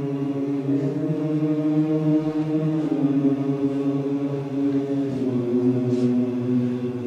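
Choir singing long held notes together in a vocal warm-up exercise, moving to a new pitch about every two seconds.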